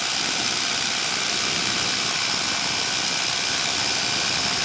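Paramotor engine running steadily in flight, a continuous even drone.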